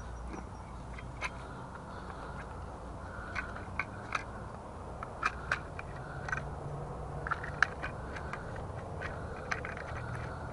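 Hard plastic pieces being handled: scattered sharp clicks and knocks, a dozen or so at uneven intervals, over a steady outdoor background.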